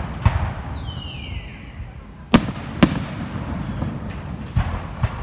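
Fireworks display: about five sharp bangs of bursting shells, the loudest pair about two and a half seconds in and two more near the end, with a falling whistle about a second in and a low rumble between the bangs.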